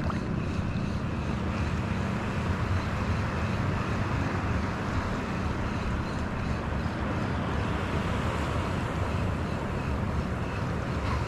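Steady wind rushing over the microphone, with choppy sea water washing and lapping at the shore.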